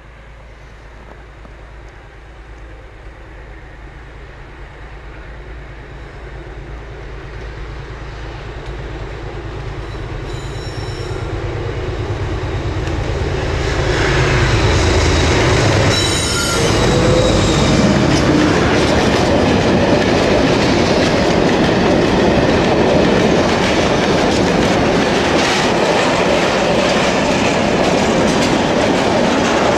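A diesel locomotive hauling a heavy freight train of hopper wagons approaches and passes. Its engine drone grows steadily louder for about fourteen seconds. Then the wagons roll by with clattering wheels and brief high-pitched wheel squeals.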